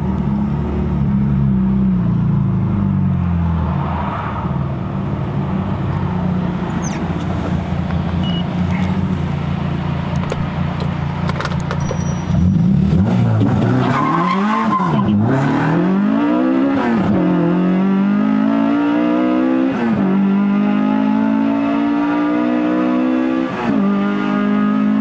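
Honda Civic FD2 with a tuned K24A four-cylinder engine and straight-pipe stainless exhaust, heard while driving: a steady engine note for about twelve seconds, then it gets louder and the revs swing up and down a few times. After that it accelerates through the gears, the pitch climbing and dropping suddenly at each upshift, twice near the end.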